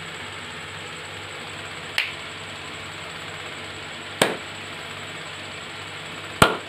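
Three sharp hand claps about two seconds apart, the second and third the loudest, over a steady low hum. Each clap is the trigger for an Arduino sound-sensor clap switch that toggles a mains LED bulb on or off through a relay.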